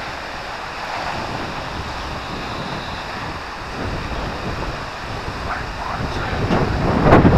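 Wind blowing across the microphone over choppy water lapping at the boat's hull, swelling into a stronger gust near the end.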